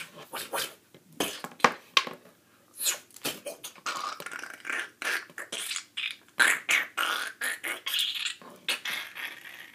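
A person making fight sound effects with the mouth: a rapid run of short, sharp vocal bursts, one after another.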